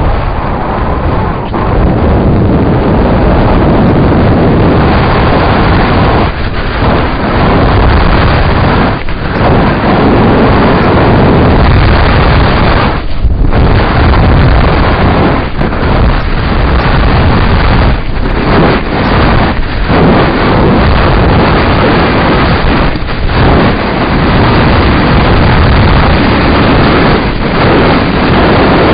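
Loud, continuous wind buffeting and rumble on a bike-mounted camera's microphone as a mountain bike rides fast along a rough dirt track, easing briefly every few seconds.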